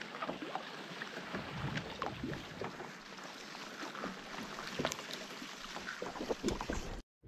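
Water lapping and trickling along a canoe hull as it glides through lily pads, with many small splashes and ticks. The sound cuts off suddenly near the end.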